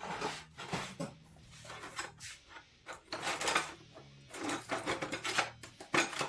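Hands handling the opened miter saw's plastic housing and trigger switch parts: scattered clicks, taps and rubbing in irregular clusters.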